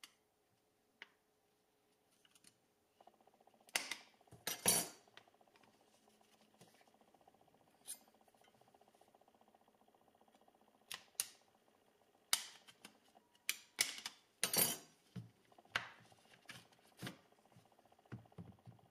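Steel knife blade prying at the edge of a JBL Flip 5 speaker's fabric-covered grille: scattered clicks and snaps with several longer scraping strokes as the grille is worked loose from the plastic body. The loudest scrapes come about four seconds in and again in the second half.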